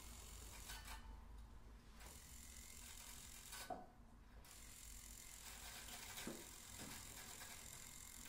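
Acoustic guitar lying flat and being mechanically agitated: faint mechanical clicking and rattling against its strings and body, with a few sharper ticks in the second half.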